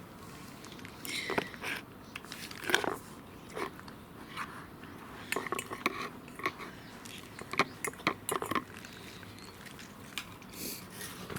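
A cat chewing and biting its food in irregular, crunchy bites.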